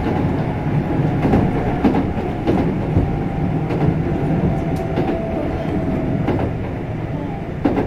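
A Kintetsu 5200 series electric train running, heard from inside the car: steady rolling rumble with wheels clicking over rail joints, and a faint steady whine from its Mitsubishi GTO-VVVF traction inverter and motors.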